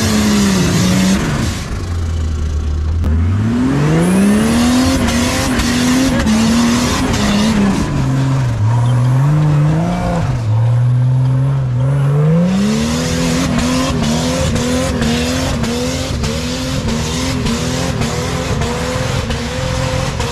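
Off-road Jeep's engine revving hard under load on a slick climb, the pitch climbing, holding, dropping and climbing again. From about two-thirds through it surges up and down in quick regular pulses, about one and a half a second.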